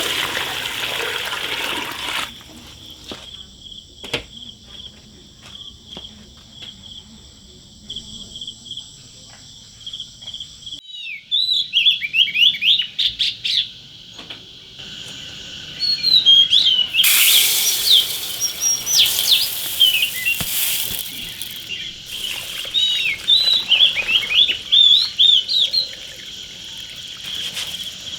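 Small birds chirping in quick, short calls that rise and fall, starting about a third of the way in and coming thickly from then on. Under them runs a steady high-pitched drone, and there is a stretch of loud hiss a little past the middle.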